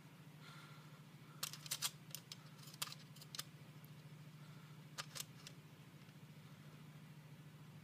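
Light clicks and taps as a tape measure and a bent steel bar are handled and held together for measuring: a quick run of clicks about a second and a half in, and a few more later. A steady low hum sits underneath.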